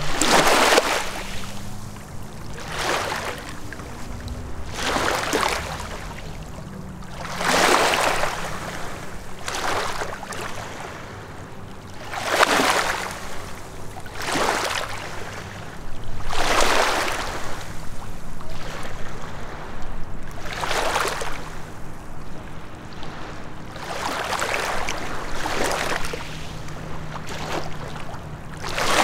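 Small lake waves lapping and splashing at the water's edge, one wash about every two seconds, over the faint steady drone of a distant motorboat engine.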